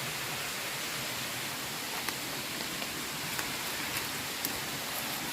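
Waterfall rushing: a steady, even hiss of falling water, with a few faint sharp ticks.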